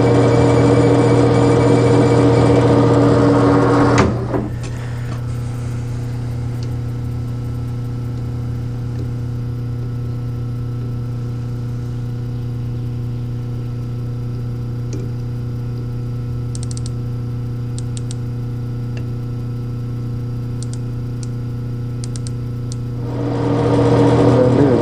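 Colchester 15x48 metal lathe running with a steady hum. It is loud with a wide hiss for the first four seconds, then drops abruptly after a click to a quieter steady hum, and swells again near the end.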